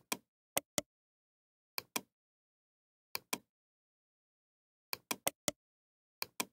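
Computer mouse button clicking: about ten short, sharp clicks, mostly in quick pairs a fraction of a second apart, with a run of four about five seconds in.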